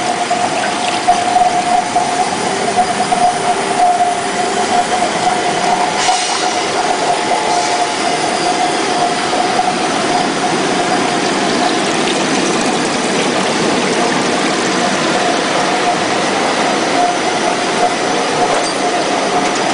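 Machinery of a polystyrene picture-frame moulding extrusion line running steadily: a constant mechanical rush with a steady whine over it.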